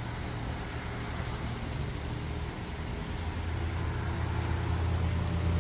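Road traffic: a vehicle engine running with a steady low hum that grows louder toward the end, over a constant street hiss.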